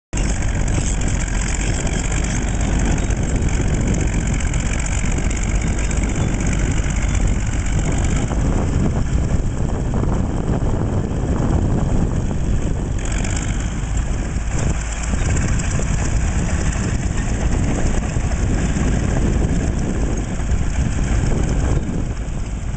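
1940s Caterpillar D8 bulldozer's diesel engine running steadily.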